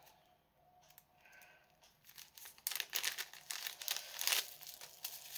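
Thin plastic packaging crinkling and rustling as it is handled and pulled open by hand. The crinkling starts about two and a half seconds in after a quiet start, and is loudest near the end.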